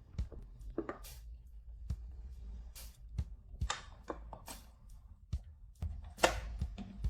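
Scattered, irregular clicks and knocks of tools and metal parts being handled during motorcycle engine work, one louder knock about six seconds in, over soft background music.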